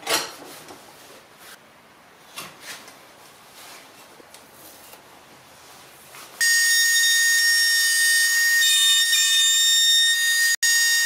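Light knocks of wooden blocks being handled and set down on a workbench, then about six seconds in a woodworking power tool cuts in at full speed with a loud, steady, high-pitched whine over a hiss.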